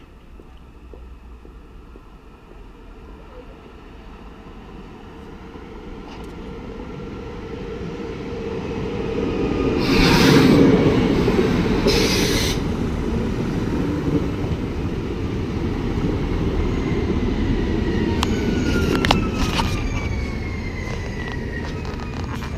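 SNCF Alstom Régiolis regional multiple unit arriving at a station platform. Its running noise grows steadily louder as it approaches and is loudest as the front passes, about ten seconds in. Near the end a high squeal falls in pitch, with a few sharp clicks, as it brakes to a stop.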